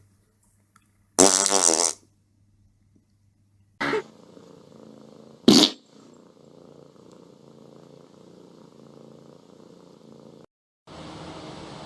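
Three fart noises: a long one about a second in, then two short ones about four and five and a half seconds in, with a faint steady low hum between them.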